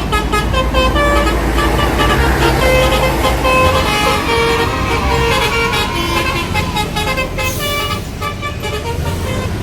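A bus's telolet horn, a multi-tone Basuri-style horn, playing a tune of short notes that jump in pitch. Under it runs the steady low rumble of a heavy vehicle's engine.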